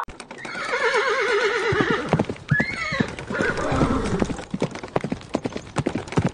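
Horse whinnying, one long wavering call that falls in pitch, then hooves clopping in an uneven run of knocks.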